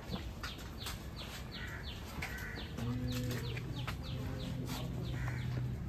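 Small birds chirping, a steady scatter of short, quick downward-sliding chirps. A low steady hum comes in about three seconds in.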